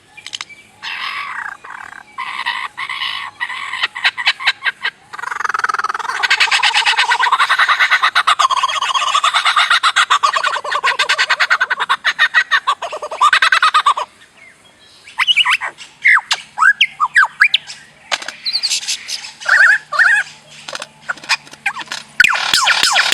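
A bird calling in a long varied series. It gives squawks, then a long loud rapid chatter lasting several seconds, then after a short pause a string of short sweeping chirps and whistles.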